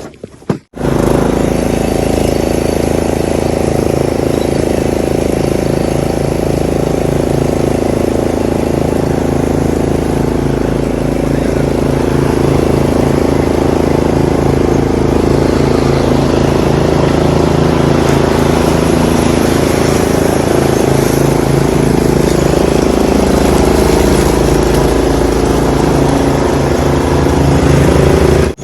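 A motor vehicle's engine running steadily and loudly close by, with a fast, even pulse. It comes in abruptly about a second in.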